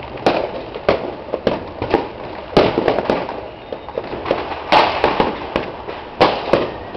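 Fireworks and firecrackers going off all around in an irregular barrage: sharp bangs and pops, the loudest about two and a half, five and six seconds in, over a steady background of more distant popping.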